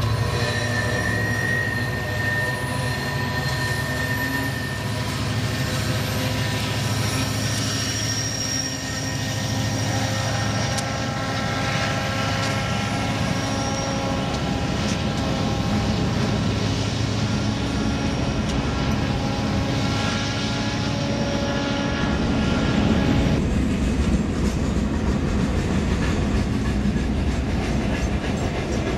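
Union Pacific freight train rolling through a grade crossing. A low diesel locomotive rumble is strongest in the first several seconds, then the freight cars go by with wheel clatter and thin, steady metallic squeals from the wheels, growing a little louder and noisier near the end.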